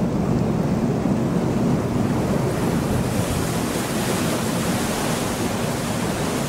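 Steady rushing noise of a canal tour boat under way: water along the hull and wind on the microphone, with a low hum underneath. It turns hissier about halfway through.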